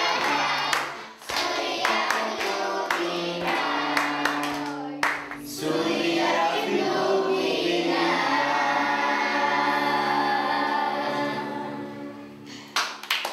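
A group of children singing a song together, clapping along for the first few seconds, then holding long sung notes that fade away near the end.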